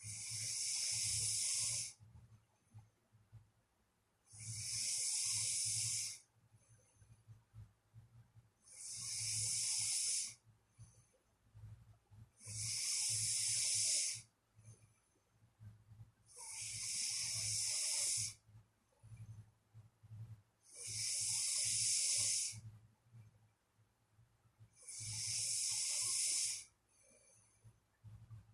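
A person snoring in their sleep: a hissing breath about every four seconds, seven breaths in all.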